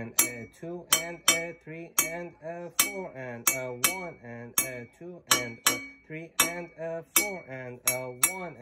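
A guataca (iron hoe blade) struck with a metal rod, playing the repeating 6/8 bembe clave pattern: sharp metallic clinks, two to three a second in an uneven, syncopated grouping, each with a short ringing tone.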